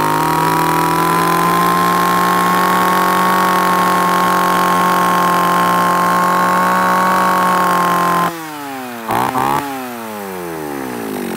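Echo 331 chainsaw's 33cc two-stroke engine held at full throttle, running at a steady high pitch for about eight seconds. Then the throttle is released: the revs fall away, two quick blips of the throttle follow, and it drops back toward idle.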